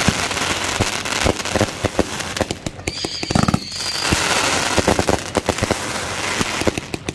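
Black Scorpion Go Maniac 27-shot 500 g firework cake firing: rapid crackling and sharp pops of bursting stars and shots in quick succession. A short thinning of the crackle about halfway through carries a brief steady high tone.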